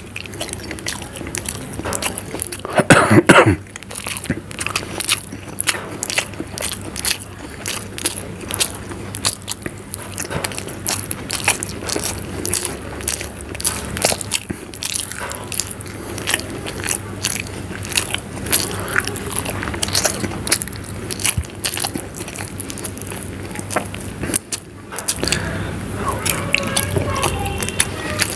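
Close-up chewing and biting of hard-boiled eggs in spicy gravy: wet, irregular mouth clicks and smacks. A brief loud voice-like sound about three seconds in.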